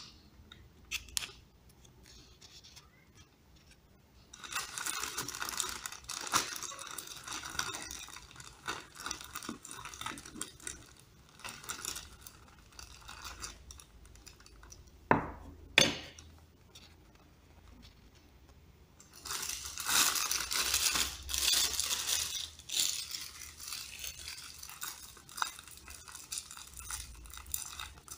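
Plastic bag crinkling and rustling in bursts as a knotted bag of soup broth is handled and opened, with two sharp knocks about halfway through.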